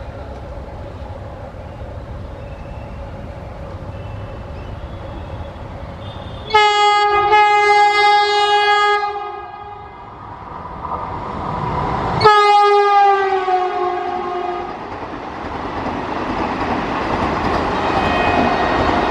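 An Indian Railways train's air horn sounds loudly over the rumble of the approaching train. A short blast and a longer one come about six seconds in, then one more long blast a few seconds later that drops slightly in pitch. After that the rumble of the passing train swells.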